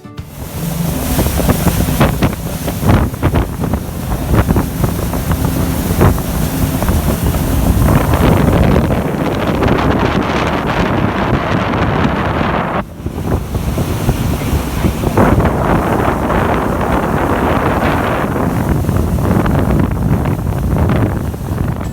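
Loud wind buffeting the microphone aboard a fast-moving boat, with rushing water underneath. The noise drops briefly about thirteen seconds in.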